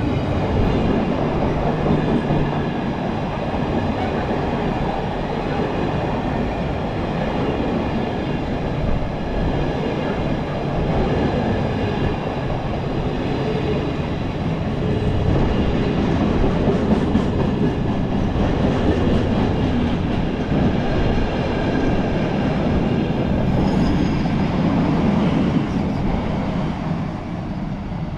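A freight train of empty container flat wagons rolling past at speed: a steady rumble of wheels on the rails that eases near the end as the last wagon goes by.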